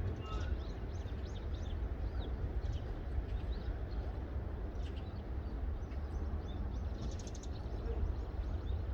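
Small birds chirping in short, scattered calls, with a quick run of calls about seven seconds in, over a steady low rumble of wind on the microphone.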